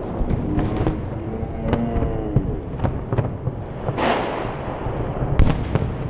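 A tree burning in an open fire, crackling with sharp pops and snaps as it throws sparks, with a brief hissing rush of flame about four seconds in.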